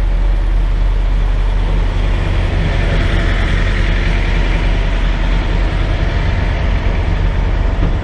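Semi-truck diesel engine running steadily at low revs, heard from inside the cab.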